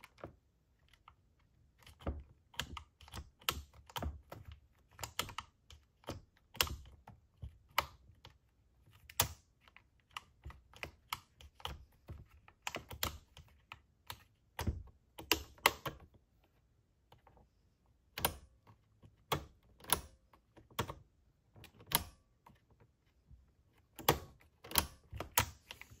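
Irregular small clicks and taps of plastic and metal parts being handled as fingers fit the carburetor linkage on a STIHL MS210 chainsaw.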